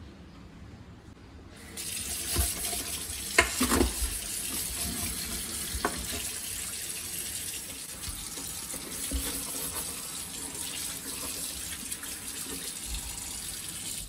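Kitchen faucet turned on about two seconds in, water running steadily from the pull-down spout into the sink, with a few knocks and clunks in the first seconds of the flow. The water stops at the end.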